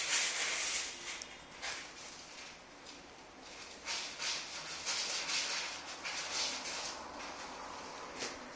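Kitten hissing in several short breathy bursts while play-biting and pawing at a hand.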